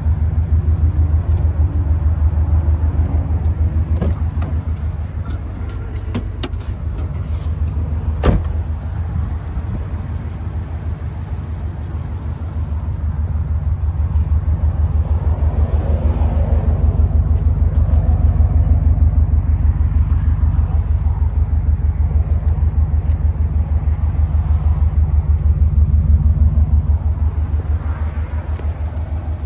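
Subaru Impreza STi Type UK's Prodrive forged turbocharged flat-four boxer engine idling steadily, a low rumble with fine even pulsing. One sharp click about eight seconds in.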